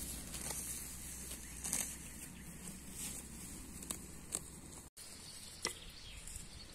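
Soft rustling and light crackling in long grass, with scattered sharp ticks and a brief dropout about five seconds in.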